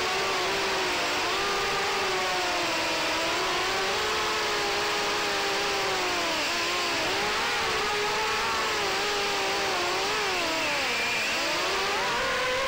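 FPV racing quadcopter's brushless motors whining in flight, the pitch wavering up and down with the throttle and dipping sharply about ten seconds in.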